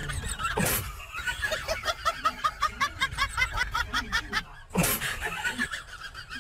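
A person laughing in a long run of quick, evenly spaced bursts, about five or six a second.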